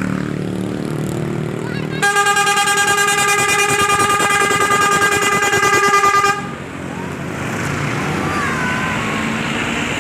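Basuri telolet horn on a bus sounding one steady held note for about four seconds, loud and with a fast pulsing flutter, starting about two seconds in and cutting off sharply. The bus engine runs underneath before and after.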